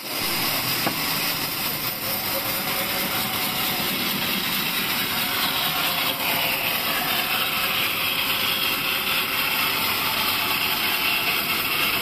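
Large vertical band saw running steadily as a pine beam is fed through it along the fence; a higher hiss comes in about halfway through.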